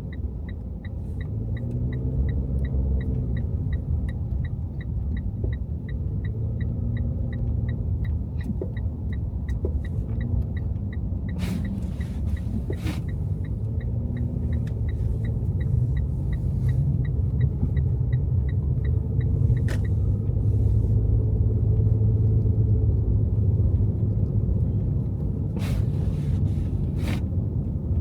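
A car driving in city traffic, a steady low rumble of engine and tyres with the engine note rising and falling. A turn-signal indicator ticks evenly about twice a second and stops about two-thirds of the way through. A few sharp knocks come later.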